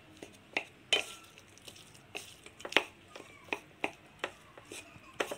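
Metal spoon stirring cooked rice in a stainless steel kadai: an irregular run of sharp clicks and short scrapes of metal on metal, the loudest about a second in and just before the third second.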